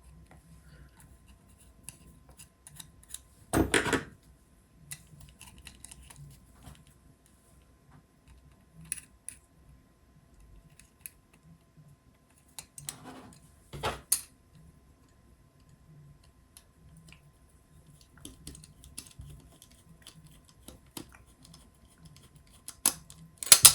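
Small clicks and taps of hands handling 3D-printed plastic robot parts and bolts, with a louder clatter about four seconds in and another around thirteen to fourteen seconds.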